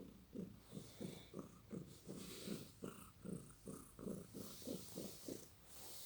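Domestic cat snoring in its sleep: a low, rhythmic rasp of about three pulses a second, with a breathy hiss over parts of it.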